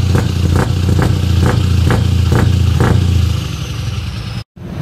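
Scania truck engine running loud through its open exhaust pipe: a steady low drone with sharp pops about twice a second. It eases off about three and a half seconds in, then cuts off abruptly near the end.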